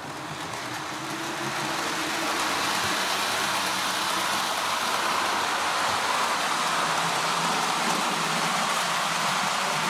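Accurascale Class 92 model locomotive and its train of rolling stock running along the model railway track: a steady rolling rattle of wheels on rail that grows louder over the first couple of seconds as the train speeds up, then holds even. Most of the noise is from the rolling stock; the locomotive's motor runs quietly now that its back EMF is set up.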